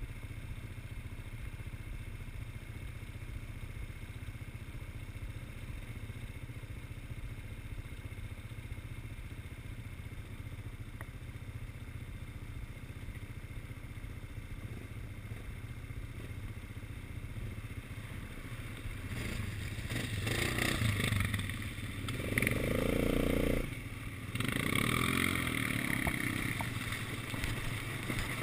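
Quad bike engine idling with a steady low hum, then revving and pulling away about two-thirds of the way in. The engine note rises and falls, drops briefly, and picks up again near the end.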